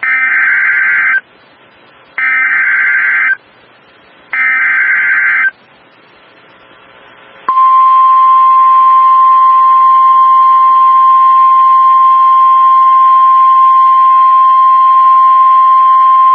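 EAS SAME digital header: three screeching data bursts of about a second each, evenly spaced, marking the start of a new NOAA Weather Radio alert. Then the steady 1050 Hz NOAA Weather Radio warning alarm tone sounds for about nine seconds before a severe thunderstorm warning is read.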